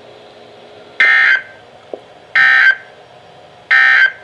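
NOAA Weather Radio end-of-message signal: three short, buzzy digital data bursts about a second and a half apart, marking the close of the broadcast alert.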